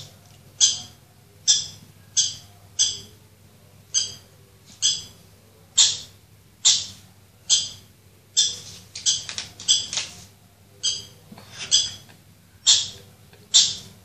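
Recorded Siberian Husky puppy squeals played through a smartphone speaker. The short, high-pitched cries repeat about once a second, with a quicker run of them around the middle.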